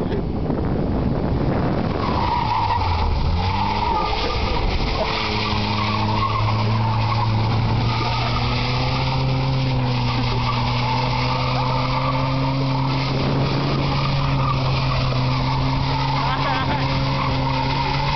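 Car engine held at high revs while the car slides round on loose dirt, over a steady rush of tyres skidding through dirt and gravel. The revs climb about three seconds in, then hold level, creeping slightly higher, until near the end.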